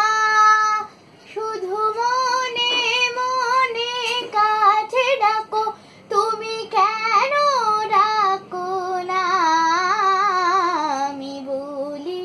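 A girl singing a Bengali song unaccompanied, in phrases of long, wavering held notes; the final phrase slides downward and ends near the end.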